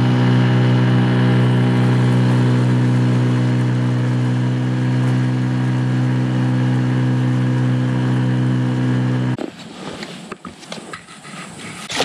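Boat's outboard motor running at a constant speed, a steady unchanging drone that cuts off suddenly about nine seconds in. Quieter rustling and handling noises follow.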